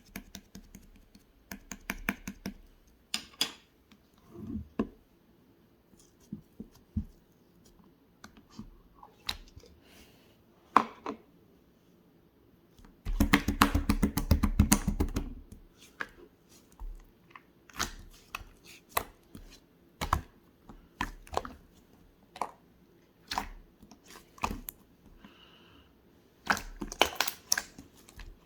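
Pink slime being squished and stretched by hand, giving sharp scattered clicks and pops, with a dense run of rapid crackling about halfway through.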